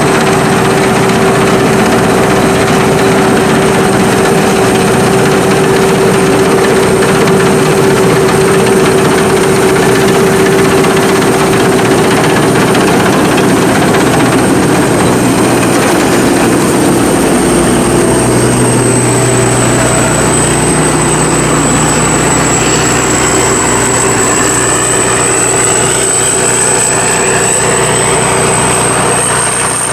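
Sakpattana SS-300 Black Bird combine harvester running, its five-cylinder engine and machinery making a loud, steady drone with a thin high whine over it. The engine note shifts lower about halfway through.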